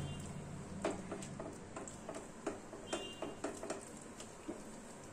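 A spatula stirring a thick yogurt-and-spice masala in a non-stick wok, with quiet, irregular taps and scrapes against the pan.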